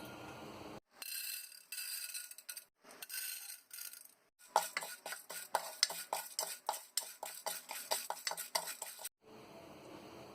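Popcorn being made in a pan. A few short stretches of hiss come first, then for about four and a half seconds a fast, irregular run of clicks and clinks as kernels rattle against the pan and a spoon.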